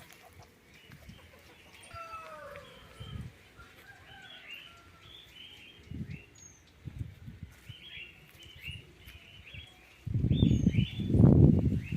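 Chickens clucking and calling in short repeated notes. Near the end comes a loud low rumble on the microphone, lasting about two seconds.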